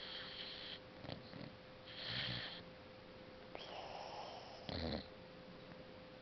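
Boxer puppy snoring and snuffling in deep sleep: about five soft, irregular breaths, with a thin high whimper rising and holding for about a second around the middle, as the dog dreams.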